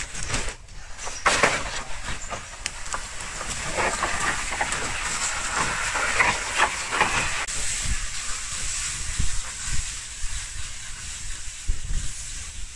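Rustling and crackling of leaves and bamboo branches being handled, with many short knocks and clicks, settling about halfway through into a steadier hiss with a few dull thumps.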